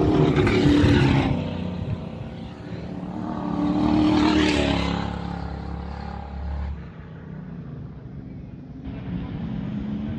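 Ford 302 V8 race cars passing at speed, two loud passes about a second in and about four and a half seconds in, then the fainter engines of approaching cars building near the end.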